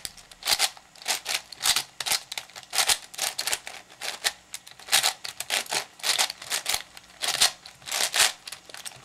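Layers of a 7x7 puzzle cube being turned quickly by hand: an uneven run of plastic clicks and scrapes as the moves of a last-two-edges pairing algorithm are carried out.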